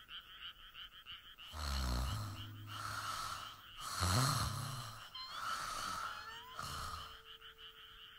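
Cartoon snoring from a sleeping boy: a series of loud, drawn-out snores beginning about a second and a half in, the loudest about four seconds in. A rapid, steady chirping runs underneath.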